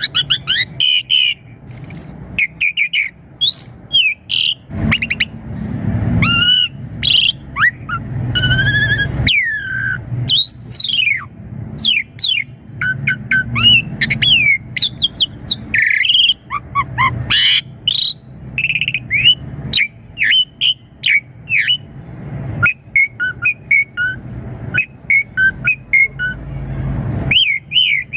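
Pied starling (jalak suren) singing a long, varied song of whistled rising and falling notes, chirps and quick clicking phrases, with hardly a pause.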